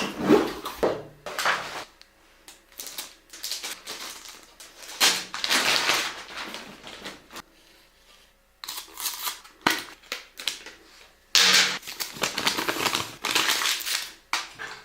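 Computer parts and their packaging being handled in a small room: irregular cardboard and plastic rustling and scraping, with sharp clicks and knocks coming in clusters.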